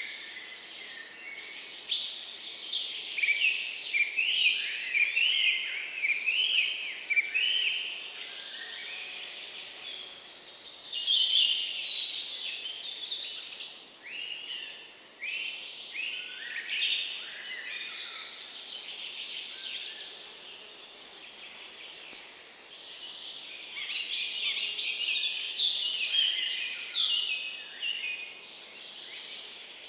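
A chorus of small birds chirping and trilling together: dense overlapping short, high chirps with no pause, busier in stretches and thinning out for a few seconds past the middle.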